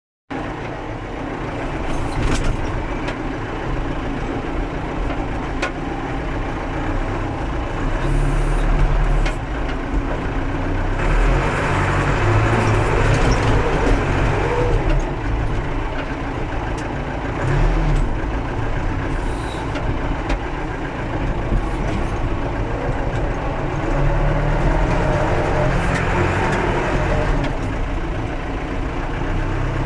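Massey Ferguson 50B backhoe loader's engine running and working under changing load while loading half-frozen ground, rising and falling in level, with a few short knocks.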